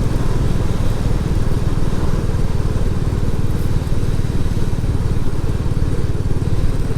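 Royal Enfield Classic 350's single-cylinder engine running steadily as the motorcycle rides along, a dense, even low pulse from the exhaust and engine.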